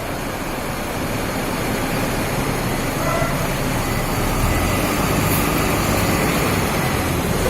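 Bus engine and road noise, a steady low rumble growing gradually louder, with a brief faint tone about three seconds in.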